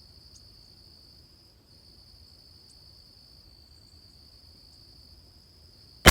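Steady high-pitched insect chorus, then a single .22 LR rifle shot from a Christensen Arms Ranger right at the very end, cracking sharply with a short echo.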